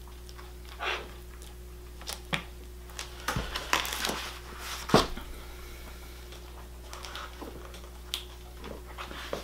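Scattered light knocks, taps and rustles of hands handling a foam-and-glove prop and hot-glue tools on a table, over a steady faint hum.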